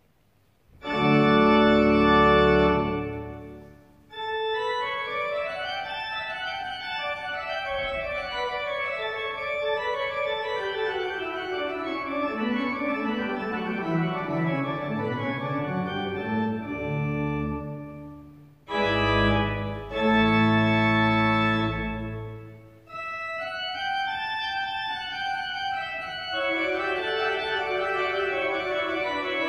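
Church organ playing a prelude-like piece. It opens with a loud full chord over deep bass held for about two seconds, then running lines wind downward. A little past halfway comes another loud full chord, and the running lines resume after a brief break.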